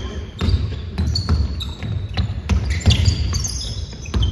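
Basketball being dribbled on a wooden gym floor, a bounce roughly every half second, with sneakers squeaking on the floor.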